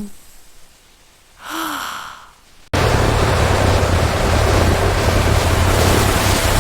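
A short, faint vocal sound about a second and a half in, then, nearly three seconds in, an abrupt switch to a loud, steady tractor engine running with a low hum.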